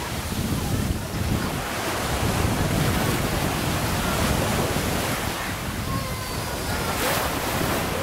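Small waves breaking and washing up a sandy beach, with wind buffeting the microphone.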